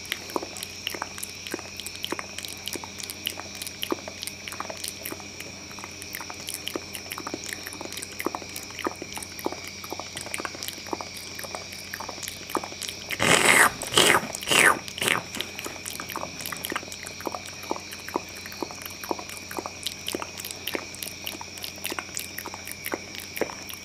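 Close-miked ASMR mouth sounds: a steady stream of small wet clicks and smacks, several each second, with a louder run of smacking about halfway through.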